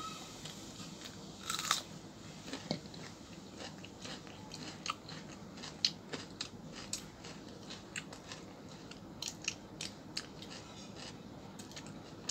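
Chewing and biting on crunchy fried potato bhujia eaten with roti: irregular crisp crunches and small clicks, with a cluster of louder crackles about a second and a half in.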